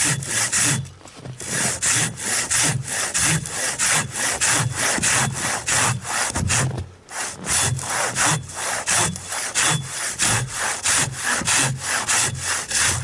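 A big handsaw cutting through the trunk of a standing pine, making the felling cut. Fast, steady back-and-forth strokes at about four a second, with brief pauses about a second in and again about seven seconds in.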